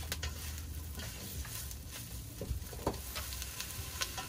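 Onion, garlic and herbs sizzling in oil in a stainless steel saucepan, with sugar added and starting to caramelize, while a silicone spatula stirs and scrapes the pan, giving a few light clicks against the metal.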